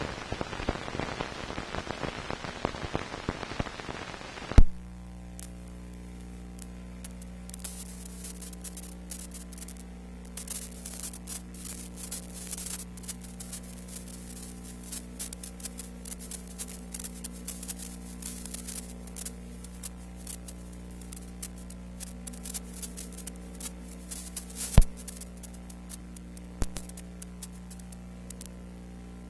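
Noise from an old film transfer with no sound of its own. A rough hiss with crackle ends in a sharp loud click about four and a half seconds in. After that comes a steady low electrical hum with scattered crackles, and two sharp pops near the end.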